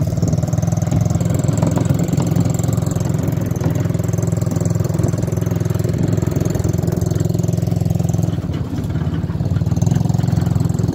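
Engine of a 125cc single-cylinder ATV running steadily at low revs, close by.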